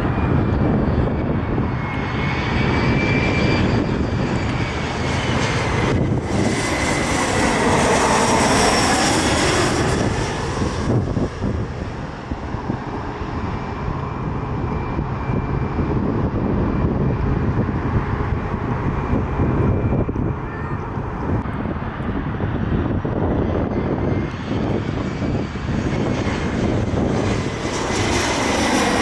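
Jet airliner's engines passing close by: a deep steady rumble with a thin high whine. The sound swells into a sweeping hiss from about six to eleven seconds in, and builds again near the end.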